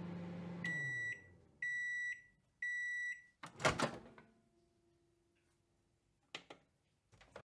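Microwave oven humming as it runs, cutting off just under a second in as the timer ends, followed by three evenly spaced high beeps signalling that cooking is done. The door then opens with a loud clunk, and a few light clicks come near the end.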